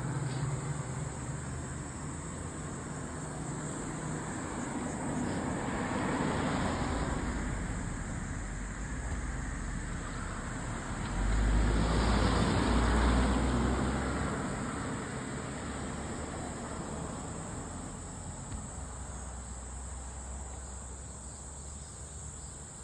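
Road traffic passing by: two vehicles swell up and fade away, the second, about eleven seconds in, louder and with a deep rumble. A steady high insect chirr runs underneath.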